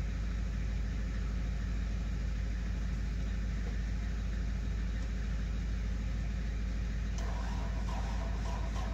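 Diesel truck engine idling steadily. About seven seconds in, a chicken starts clucking over it.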